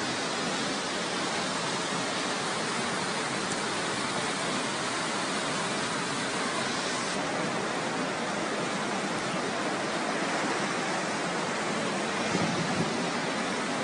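Steady rush of fast-flowing floodwater, with a brief louder swell near the end.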